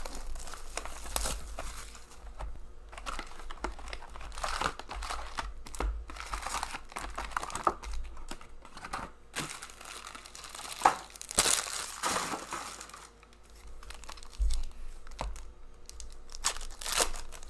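Hockey card pack wrappers being torn open and crinkled by hand, in irregular rustling bursts, with one sharp click about eleven seconds in.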